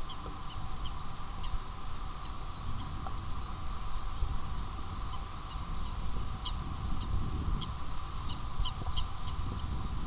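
Small birds chirping: short high calls, a quick trill about two and a half seconds in, and a busier cluster of calls in the last few seconds. Under them runs a steady low rumble and hum.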